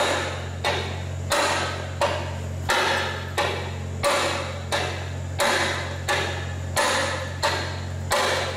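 Hand hammer striking a tool set in a truck radiator's hose neck: steady, evenly spaced blows, about one and a half a second, each ringing briefly.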